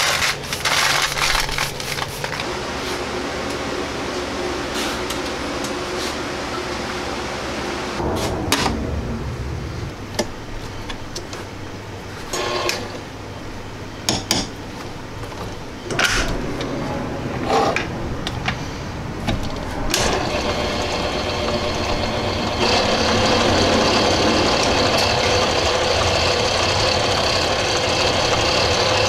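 A hand brush sweeps across a concrete floor into a dustpan. After that come scattered clinks and knocks as metal tooling is fitted on a mini metal lathe. From about two-thirds of the way through, the mini lathe's motor runs steadily.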